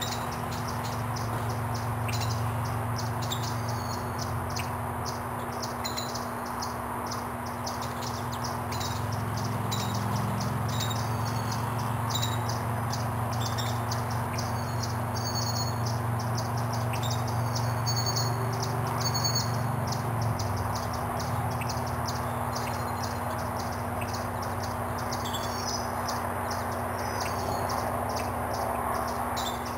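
Virginia rail family calling to one another from the marsh: a steady run of short, high chips and peeps, several a second in places, over a steady low rumble.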